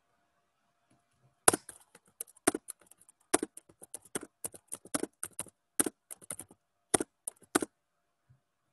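Quick, irregular clicking of computer keys and mouse buttons, some clicks in tight clusters. It starts about a second and a half in and stops shortly before the end.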